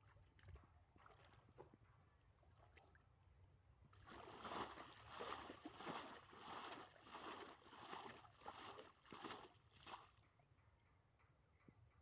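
Water being scooped with a steel bowl and flung out of a small mud pit: a run of about nine splashes, roughly three every two seconds, starting about four seconds in and stopping about ten seconds in, with only faint sloshing before.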